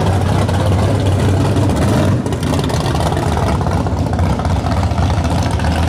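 Modified muscle-car drag racing engines idling loudly and steadily, with no revving, and a short dip in level a little over two seconds in.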